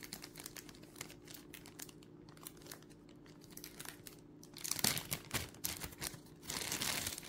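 Plastic packaging crinkling and rustling as small parts are handled, with light clicks. It gets louder about five seconds in and again near the end.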